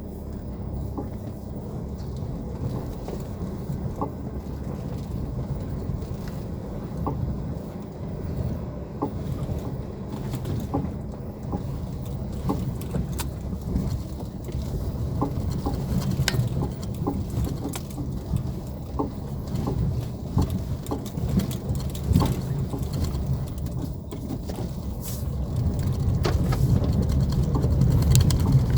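A 2019 Chevrolet Onix driving, heard from inside the car: a steady low road rumble with irregular short clicks and knocks from the suspension. The rumble grows louder near the end.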